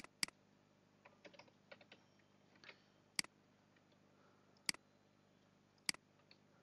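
Quiet computer keyboard keystrokes and mouse clicks: two quick clicks at the start, then single sharp clicks spaced about a second and a half apart, with faint light tapping between them.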